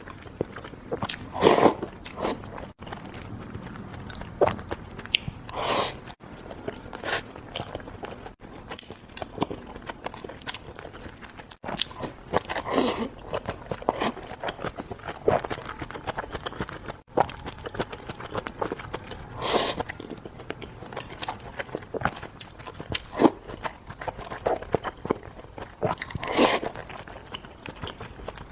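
A person biting and chewing crunchy food: many small chewing clicks, with a louder crunching bite every five to seven seconds.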